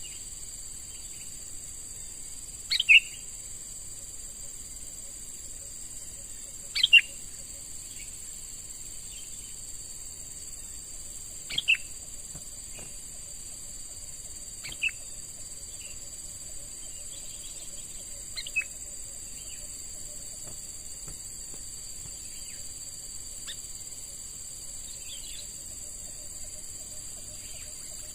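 Sooty-headed bulbul giving short calls every few seconds, the loudest ones early and fainter ones towards the end, over a steady high-pitched drone of crickets.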